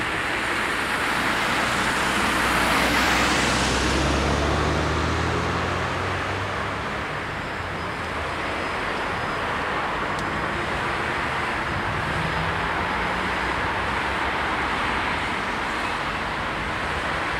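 Road traffic: cars driving past, one passing close about three seconds in with its engine and tyre noise rising and fading, then a steady traffic hum.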